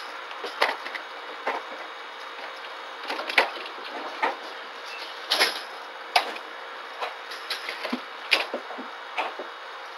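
A small pet monkey scrambling about its wire cage and perch, making irregular clicks, scratches and light knocks over a steady hiss from a home security camera's microphone.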